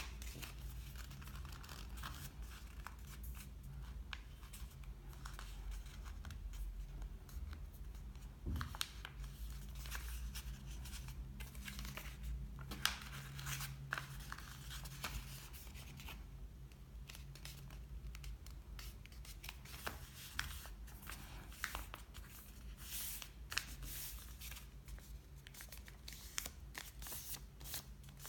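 A sheet of paper being folded into a paper airplane by hand: crisp rustles and creasing scrapes as fingers press down the wing folds, busier near the end, over a faint low steady hum.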